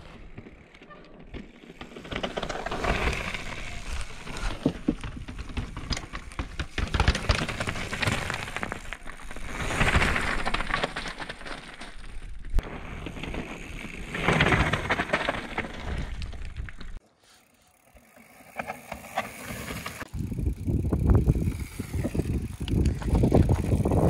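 Mountain bike riding down rock slabs: tyres rolling and scrabbling over the rock, with the bike clattering over bumps, in several swelling runs and a short quiet break about two-thirds of the way through.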